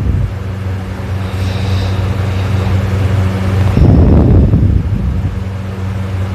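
A person snoring loudly: one loud, rough snore about four seconds in, and a softer breathy sound about a second and a half in, over a steady low hum.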